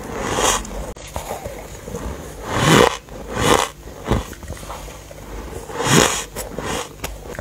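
Soft freezer-frost ice being bitten and chewed off a spoon: a run of separate crunching bursts, loudest a little under three seconds in and again about six seconds in.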